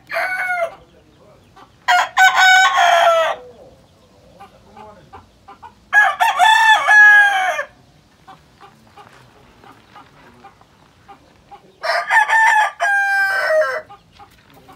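Roosters crowing in their pens: the end of one crow at the start, then three full crows about 2, 6 and 12 seconds in, each a second and a half to two seconds long, with quiet gaps between.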